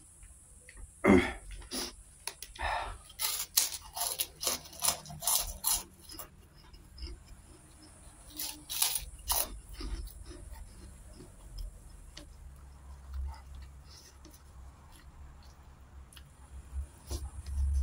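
Close-up chewing with crisp crunching of a crispy cracker, in two runs of sharp crackles: one from about a second in lasting several seconds, another shorter one near the middle. Softer chewing comes between them.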